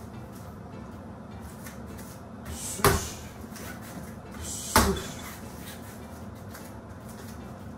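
Two sharp thuds about two seconds apart, each with a short soft rustle just before it, over a steady low hum.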